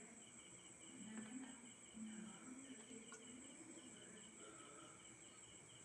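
Near silence, with a faint cricket chirping steadily in rapid, even pulses.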